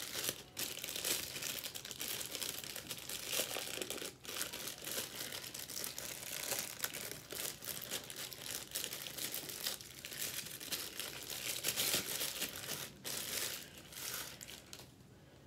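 Clear plastic bag crinkling and rustling with many small crackles as hands dig into it and pull out a part. It dies down near the end.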